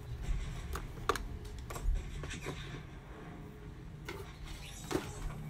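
Makeup products being handled and rummaged through: scattered light clicks and taps of small containers and brushes, over a low steady hum.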